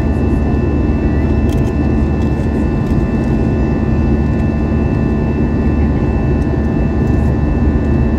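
Steady jet engine drone and airflow heard inside the cabin of an Airbus A321 in flight, a constant low rumble with a few faint steady high whine tones above it.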